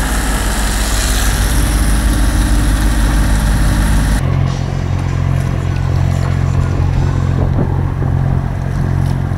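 Inboard diesel engine of a Beneteau Oceanis 370 sailboat running steadily under power, with meat sizzling in a frying pan on the galley stove for about the first four seconds. Then the sizzle cuts off and a steady, deep engine hum carries on alone.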